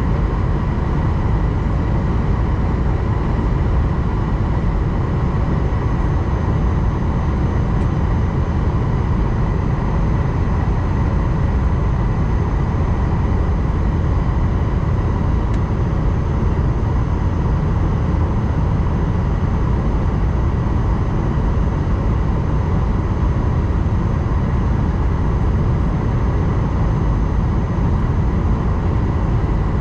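Steady cabin noise of an Airbus A220-100 airliner on approach: a low rumble of airflow and its Pratt & Whitney PW1500G geared turbofan engines, with faint steady whining tones above it.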